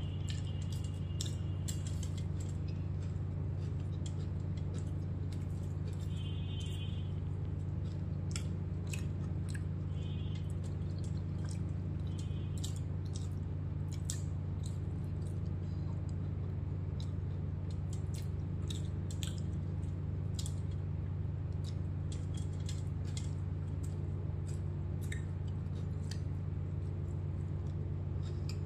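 Close-up mouth sounds of someone eating beef biryani by hand: wet chewing, with many quick mouth clicks and lip smacks, over a steady low hum that is louder than the eating.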